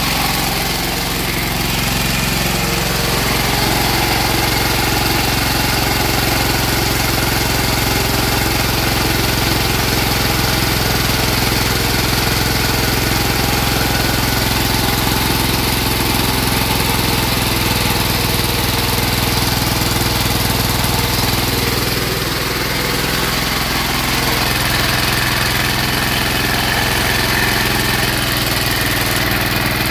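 High-compression diesel engine converted to run on woodgas, running steadily at a constant speed under load and driving a generator by belt.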